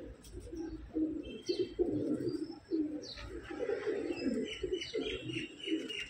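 Domestic pigeons cooing over and over in short, repeated phrases. From about three seconds in, a run of quick, high chirps joins in.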